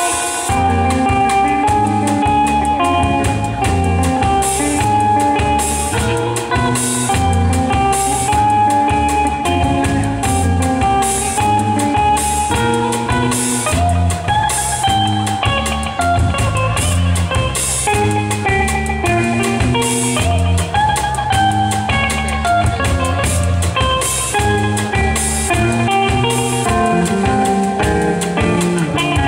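Live rock band playing: an electric guitar carries a sustained lead melody over electric bass and a drum kit with regular cymbal hits.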